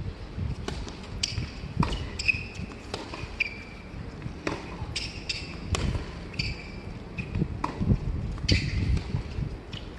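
Tennis rally on a hard court: about a dozen sharp pops of the ball off the rackets and the court, irregularly spaced about half a second to a second apart, with short high squeaks of shoes on the court and a low hum of arena noise underneath.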